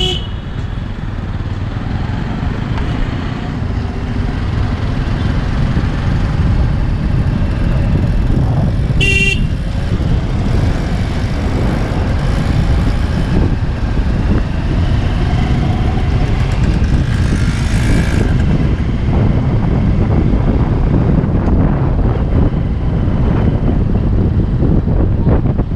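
Steady low traffic rumble heard from a vehicle moving through city traffic, with wind on the microphone. A short vehicle horn toot sounds about nine seconds in.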